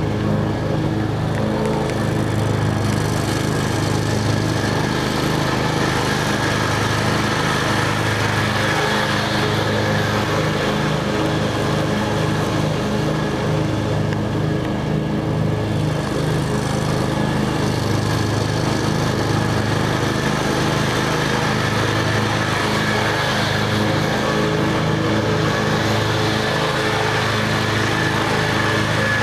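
Kawasaki FH500V 17 hp V-twin engine on a Scag commercial zero-turn mower, running steadily at an even speed. It is in good running order.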